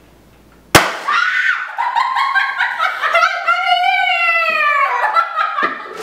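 A handheld confetti cannon (party popper) goes off with one sharp bang about a second in, followed by two girls screaming and cheering in long, rising and falling shrieks.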